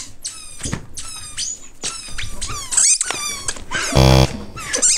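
Children shrieking and squealing with laughter as they dodge, in a rapid string of short, high-pitched cries. About four seconds in comes a short, loud buzzing burst.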